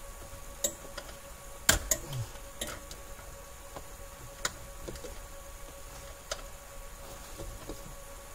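Scattered small clicks and taps of a pick tool working a plastic wiring-harness clip behind a car's push-to-start button, with a short cluster of louder knocks about two seconds in. A faint steady tone sits underneath.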